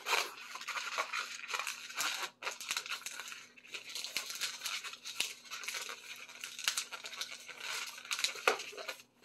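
White 260 latex modelling balloon being twisted and worked by hand: a run of short scratchy strokes of latex rubbing against latex and fingers.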